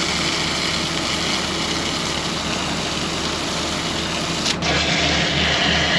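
Hot water spraying from a hose's pistol-grip nozzle onto the ice-bound steel gate track of a manure spreader wagon, a steady hiss. Under it runs a low engine hum that turns into a rhythmic throb, a few pulses a second, from about four and a half seconds in.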